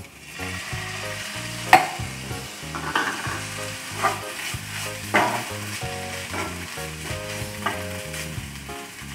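Broccoli in pepper masala sizzling in a nonstick frying pan just after a splash of water is sprinkled in. A spatula stirs and scrapes it against the pan, about six sharp strokes roughly a second apart.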